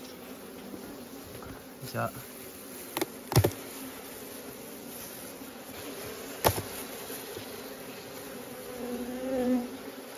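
Honeybees buzzing steadily over an opened wooden box hive full of honeycomb. A few sharp knocks come about three seconds and six and a half seconds in, and the buzzing swells near the end.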